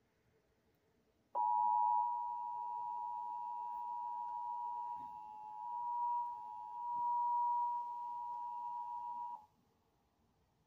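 EAS two-tone attention signal (853 and 960 Hz) on a NOAA Weather Radio broadcast: a steady dual tone that starts sharply about a second in, holds for about eight seconds and cuts off abruptly. It signals an incoming emergency alert, here a severe thunderstorm warning.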